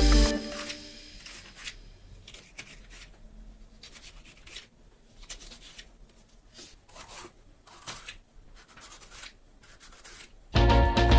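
Knife cutting through bell pepper onto a plastic cutting mat: faint, crisp cuts at an uneven pace, roughly one a second. Background music fades out just after the start and comes back in near the end, loudest of all.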